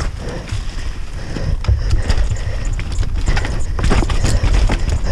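Downhill mountain bike ridden fast over a dirt track, with wind rumbling on the microphone and a run of irregular knocks and rattles from the bike as the tyres hit bumps and, near the end, loose rocks.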